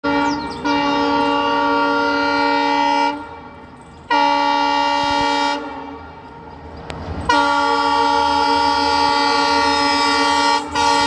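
Train horn sounding in repeated blasts of steady pitch: a short toot, a long blast of a couple of seconds, a shorter one, another long blast, and a brief toot near the end.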